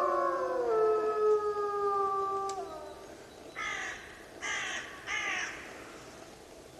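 A wolf pack howling in chorus: several long, overlapping howls that slide down in pitch and die away about three seconds in. Then three short, harsh caws follow, less than a second apart.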